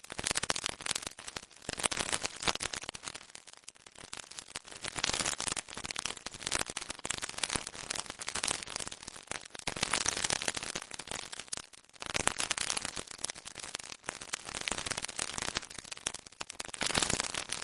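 Electrified-granules sound effect: dense, irregular electric crackling made of many tiny clicks, coming in swells that rise and fade every few seconds, with a brief break about twelve seconds in.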